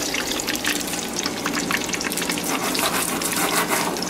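Food frying in a skillet of hot bacon grease: a steady sizzle full of fast crackles and pops.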